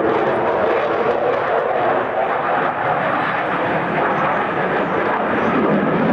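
Jet fighter's engine noise, a loud steady rushing roar as the aircraft manoeuvres through an aerobatic display.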